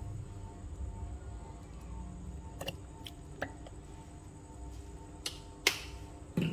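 A few short, sharp clicks over a low, steady hum, the loudest about five and a half seconds in.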